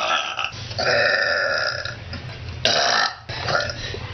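Girls burping one after another: a short burp at the start, a long drawn-out burp lasting about a second, then a shorter burp and a faint one near the end.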